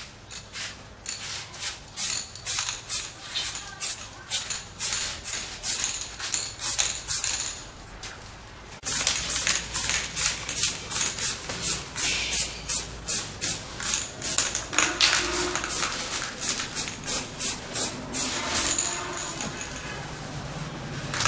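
Aerosol spray-paint can spraying a base coat in many short, quick hissing puffs, about three a second, louder from about nine seconds in.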